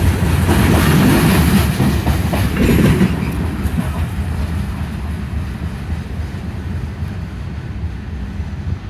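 Freight train cars rolling past on the rails as the last covered hopper goes by, a loud rumble for about three seconds that then fades steadily as the end of the train moves away.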